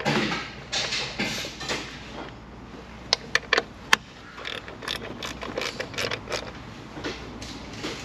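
Hands and a hand tool working around an ignition coil's mounting bolt and connector: scraping and rustling handling noise, with a few sharp metal clicks about three to four seconds in.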